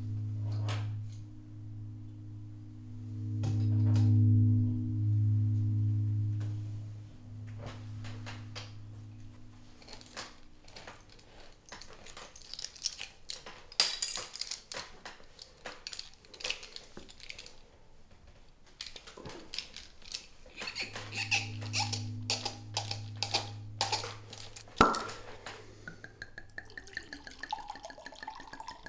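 A low droning music tone fades out about ten seconds in and comes back briefly later. Under and between it come the small clicks, knocks and glassy clinks of a wine bottle being handled and opened, with one sharp knock a few seconds before the end and then wine pouring into a glass.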